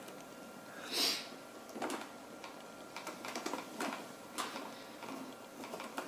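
Faint clicks and taps of a CPU water block being seated on the socket and its mounting screws turned by hand, with a short rustle about a second in.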